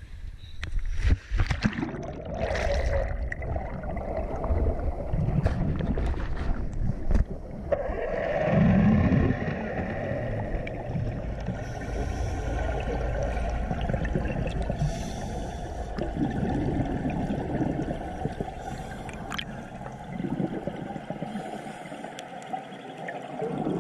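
Splashing and knocks as a scuba diver goes from the boat into the sea, then muffled underwater sound from about eight seconds in. Scuba regulator exhaust bubbles gurgle in bursts every few seconds.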